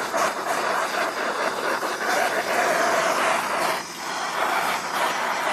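Handheld gas torch burning with a steady roaring hiss while heating a roller bearing so it will expand to fit onto the differential; the noise drops briefly a little before four seconds in.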